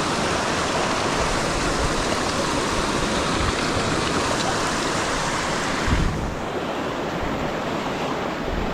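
Stream water rushing over rocks, a steady hiss, with wind bumping on the microphone. About six seconds in, the hiss gets a little duller and quieter.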